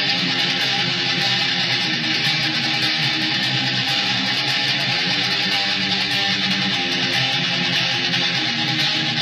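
Electric guitar, a single-cutaway Les Paul–style, playing a fast picked metal riff with a dense, steady, distorted sound.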